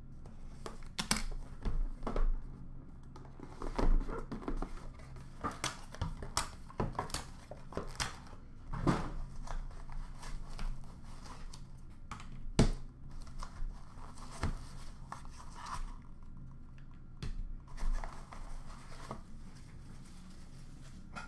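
Plastic shrink-wrap crinkling and tearing off a sealed hockey card box, then the cardboard box and the cased cards inside being handled. Irregular rustling with sharp clicks and knocks, a few of them much louder.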